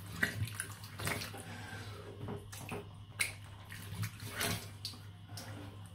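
Hands scooping and splashing tepid water from a sink onto the face to rinse off after a shave: a series of irregular splashes and drips over a steady low hum.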